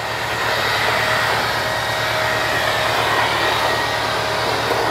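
Motor of a handheld cordless power tool running steadily: an even, airy whir with a faint steady whine.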